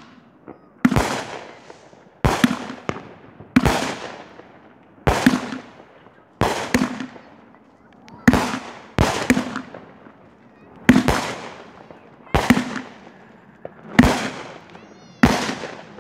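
Aerial fireworks going off close by in a rapid series: about a dozen sharp bangs, one every second or so, each trailing off briefly.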